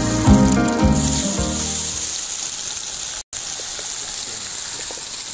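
A whole marinated tilapia sizzling steadily as it fries in hot oil, after it is lowered into the pan. Background music fades out over the first second or two, and the sound cuts out briefly a little past three seconds.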